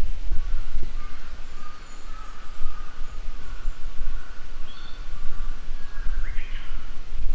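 Japanese bush warbler (uguisu) singing, its whistled song ending in a short rising phrase near the end, over a steady low rumble of wind on the microphone.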